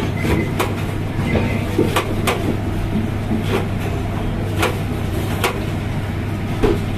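Kitchen knife chopping a pile of fresh coriander and mint leaves on a stainless steel counter: sharp, irregular chops about every half second to a second, over a steady low hum.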